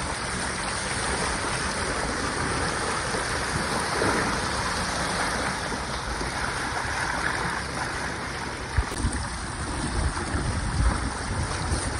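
Steady wind noise and water rushing past the hull of a small Hobie sailboat running through choppy water. There are a few low thumps about nine seconds in and near the end.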